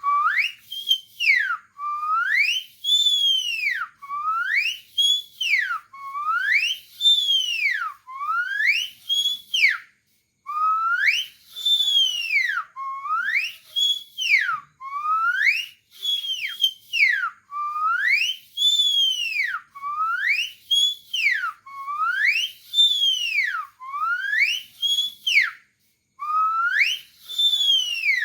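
A man whistling an imitation of a songbird's call: one clear note that sweeps up and then back down, repeated about every two seconds.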